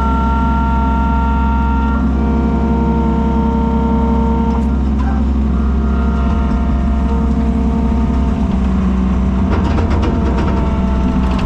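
Komatsu skid steer's diesel engine running steadily, with some clattering near the end.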